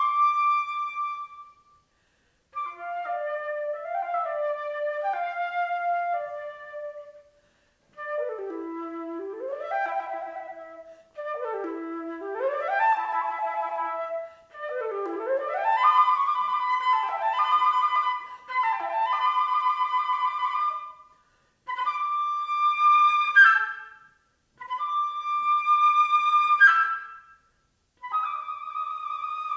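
Unaccompanied flute playing a contemporary piece in phrases broken by short silences. Quick upward sweeping runs fill the middle, and short phrases of held high notes come near the end.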